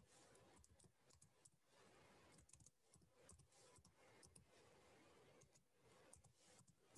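Faint typing on a computer keyboard: irregular key clicks, a few each second.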